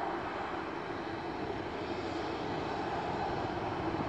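Boeing 737-800's CFM56-7B turbofan engines running at low taxi thrust, a steady jet rumble and hiss.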